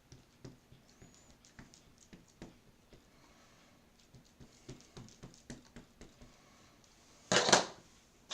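Light, irregular taps and clicks of rubber stamps being dabbed onto an ink pad, with one louder brief rustle about seven seconds in.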